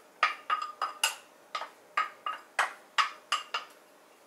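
A spatula knocking against a small bowl about a dozen times in quick, uneven succession, short ringing clinks, as chopped onion, garlic and red chilli are knocked out of the bowl into a frying pan. The knocks stop about three and a half seconds in.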